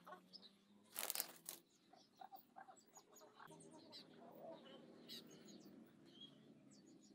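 A pigeon's wings flapping in one short, loud burst about a second in, as it flies up onto the loft roof; afterwards only faint scattered small sounds from the pigeons.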